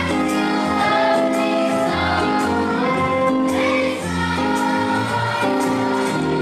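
Children's choir singing with instrumental accompaniment, held notes over a steady bass line.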